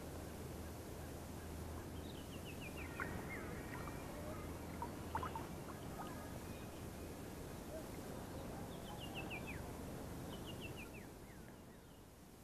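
A bird calling three times, each call a quick run of four or five short notes stepping down in pitch, over a steady low hum. A few faint clicks fall between the first and second calls.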